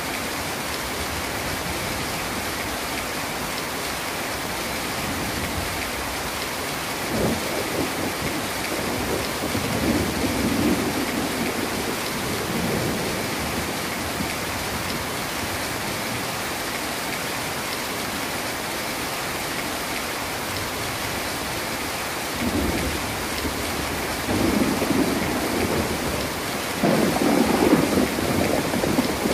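Heavy rain falling steadily, with low rolls of thunder rumbling about seven seconds in and again through the last several seconds, the final roll the loudest.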